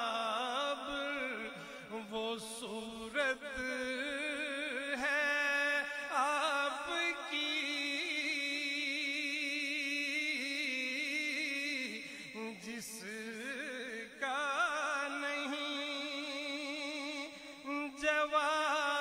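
A man's solo voice singing a naat in a long, drawn-out, ornamented melody with wavering sustained notes, over a steady low drone.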